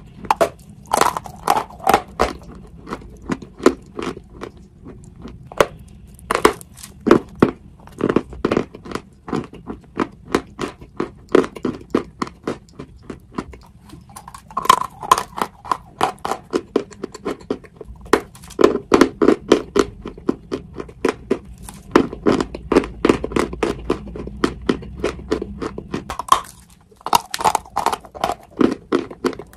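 Close-miked crunching and chewing as a person bites through dry blocks of pressed white edible chalk. Runs of rapid, sharp crunches come with short pauses between bites.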